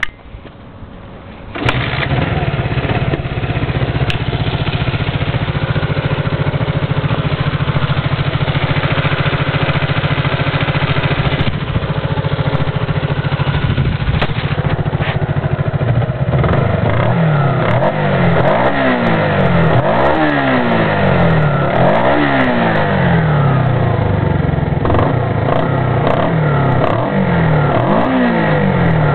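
Honda CB125 motorcycle engine starting up about a second and a half in, then idling steadily, and from about halfway through blipped with the throttle several times, the pitch rising and falling with each rev. The owner suspects it of making a strange noise.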